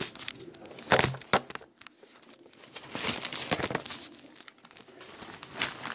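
Wrapping crinkling and rustling as food is handled, with two sharp knocks about a second in and more crackling in the middle and near the end.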